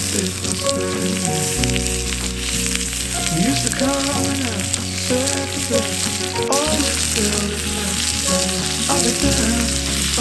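Beef searing in a hot cast-iron skillet over a wood fire, sizzling steadily. Background music with a stepping bass line plays underneath.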